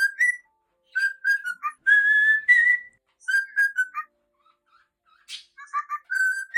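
Cockatiel whistling its song: clear, piping notes in short phrases, with a longer held note about two seconds in that lifts in pitch at its end, quick runs of short notes, and a brief pause past the middle.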